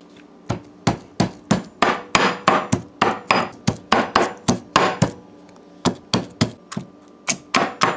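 Stone pestle pounding garlic and hot peppers in a granite mortar: a run of sharp knocks about three a second, with a short pause about five seconds in before a few more.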